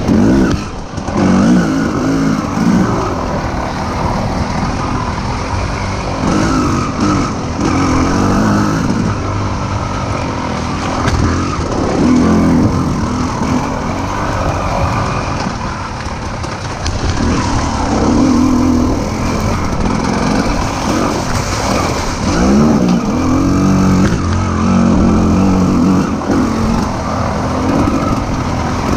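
Dirt bike engine ridden hard off-road, its pitch rising and falling every second or two as the throttle is worked on and off, over a steady rush of noise.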